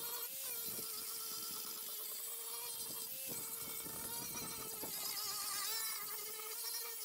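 Cordless Milwaukee angle grinder running steadily with a high motor whine, its disc worked along the edge of a plywood panel; the pitch wavers slightly now and then.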